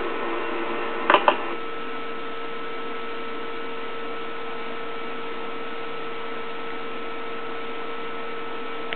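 Steady electrical hum and hiss, with two short clicks about a second in.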